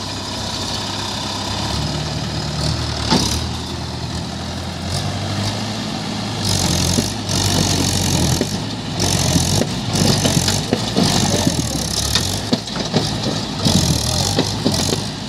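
Diesel tractor engines running, their note stepping up and down in pitch as the tractors work to pull a mud-laden trolley through soft ground. From about six seconds in, loud rushing bursts come again and again over the engines.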